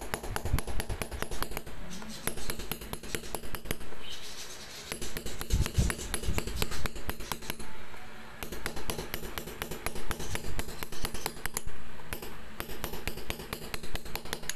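Small hand hammer striking a chasing punch against an embossed brass sheet backed with asphalt pitch: a quick, steady run of light taps, several a second, with a few duller thumps about half a second in and again about six seconds in. This is chasing, the repeated 'double pukpuk' hammering that brings up the detail of the design.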